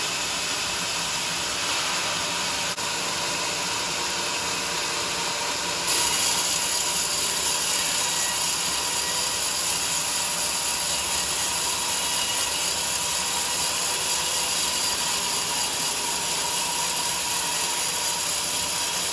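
Sawmill saw cutting a teak log: a steady, dense mechanical noise that steps up louder and sharper about six seconds in.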